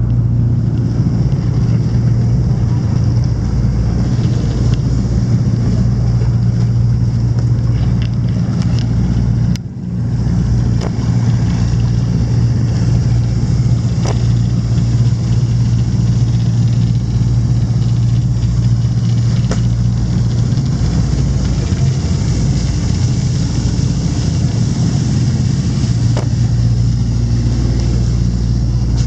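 An engine running steadily with a low drone, heard from on board. The level dips briefly about ten seconds in.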